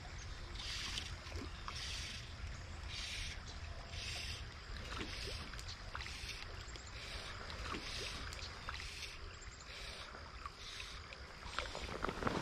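Small stream flowing with a steady low rumble, while a high-pitched sound pulses about once a second. A few sharp knocks come near the end.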